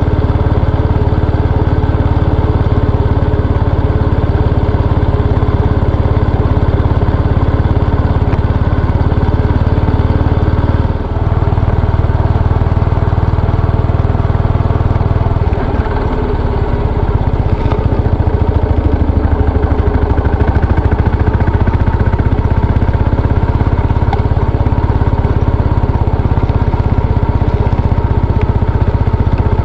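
Yamaha SR400's air-cooled single-cylinder four-stroke engine running steadily, with a deep low tone. Its sound dips and shifts briefly about 11 seconds in and again around 16 seconds.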